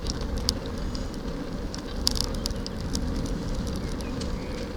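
A loaded touring bicycle rolling along a towpath: a steady low rumble of tyres and wind on the microphone, with scattered small ticks.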